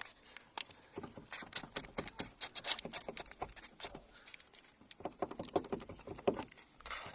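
A car's rear door check strap (door limiter) creaking and squeaking as the door is swung back and forth, with many sharp clicks and short squeaks. The squeak comes from the dry, unlubricated limiter.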